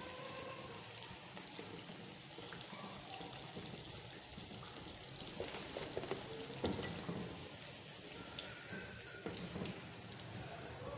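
Battered aubergine pakoras sizzling and crackling in hot oil in a wok, with a utensil knock about two-thirds of the way in.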